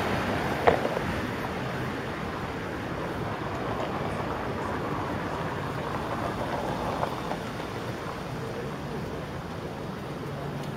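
Steady outdoor rush of noise: city street traffic mixed with wind on the microphone, with a single sharp click about a second in.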